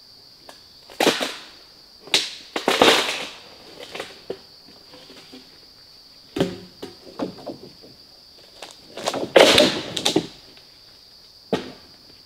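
Crunching and rustling of dry leaf litter and sticks underfoot and in the hands, in irregular bursts with a few sharp snaps, over a steady high-pitched insect drone.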